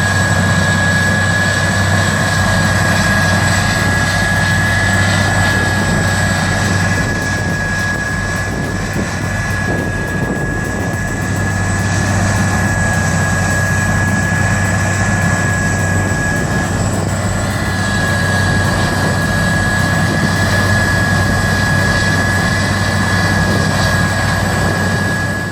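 Vermeer 8000 wood grinder regrinding wood chips: a loud, steady engine drone with a constant high whine over the grinding noise.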